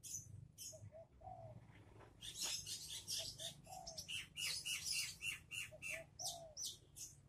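A dove cooing in a repeated phrase of two short notes and one longer note, about every two and a half seconds, with small birds chirping rapidly.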